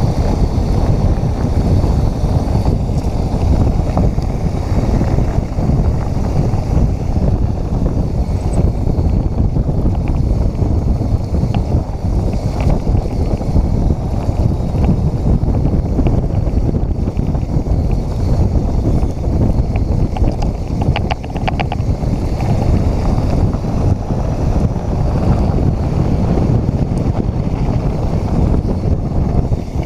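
Wind rushing over an action camera's microphone as a mountain bike rolls along a trail, with the bike's tyres and frame rattling over the rough ground. A brief run of rapid ticks comes about two-thirds of the way through.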